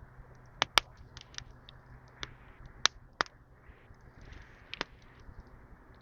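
About eight irregular sharp clicks and short scrapes from fire-lighting gear and dry reed kindling being handled, over the steady rush of a river.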